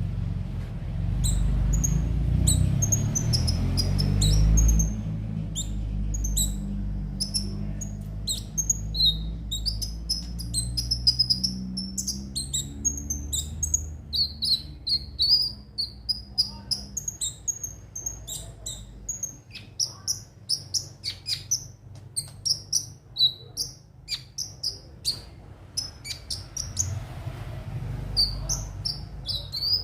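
Konin (kolibri ninja) sunbird singing: rapid, sharp, high-pitched chirps and twittering trills, thickening into a dense run of chirps after the first few seconds. A low steady hum lies underneath in the first half and fades out around the middle.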